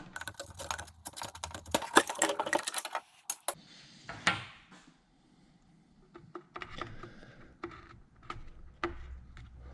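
Quick clicks and rattles of small chainsaw parts being handled while a new fuel line is pushed through into the fuel tank. The clicking is dense for the first three seconds or so, then thins to scattered single clicks.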